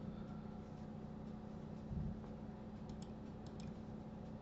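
A few faint computer keyboard and mouse clicks, mostly in the second half, over a low steady hum.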